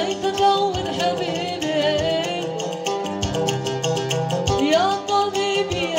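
Live Yemeni wedding song: a male voice sings a wavering, ornamented melody over a plucked string instrument and a quick, steady percussive beat.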